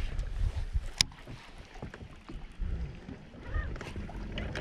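Wind rumbling on the microphone out on a boat on choppy lake water, with one sharp click about a second in.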